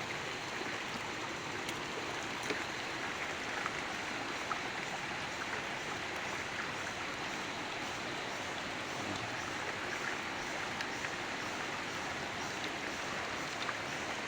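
Steady rushing of flowing stream water, with a few faint clicks.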